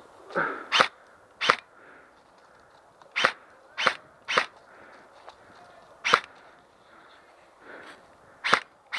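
Airsoft guns firing single shots, about eight sharp pops at irregular intervals.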